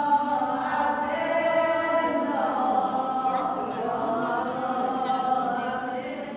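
Chanted singing in a choir-like style, with long held notes that glide slowly in pitch.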